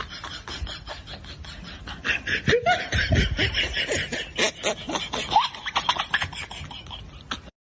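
A group of people laughing in quick bursts, louder from about two seconds in, with some rising squeals; it cuts off abruptly near the end.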